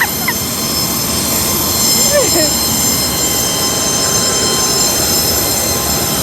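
Loud, steady mechanical roar with several high, unchanging whining tones over it, the kind of noise heard beside running aircraft engines or inside a rail vehicle.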